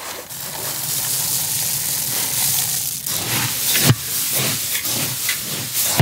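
Fried peanuts poured from a large metal bowl onto a heap of puffed rice, a steady rushing patter for about three seconds. Then a ladle stirs the mix, making a run of uneven scraping strokes with a sharp knock about four seconds in.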